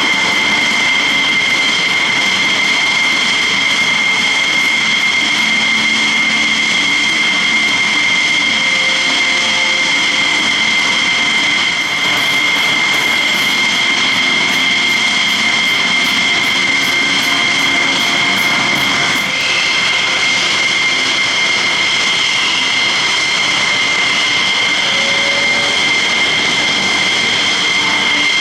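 F-16 Fighting Falcon jet engines running at ground idle: a steady, loud, high-pitched whine with two held tones over a rushing hiss.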